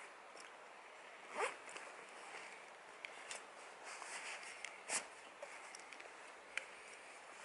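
A Cotopaxi Cusco daypack being repacked: a zip pulled, fabric rustling, and a few light knocks as a water bottle and a flask are slid into it. Quiet, in short scattered bursts, the loudest about a second and a half in and again about five seconds in.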